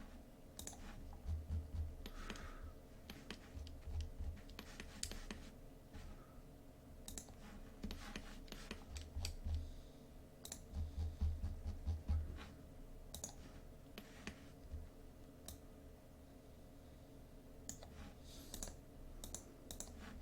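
Scattered computer mouse clicks and a few keystrokes, with soft low thumps and a faint steady hum underneath.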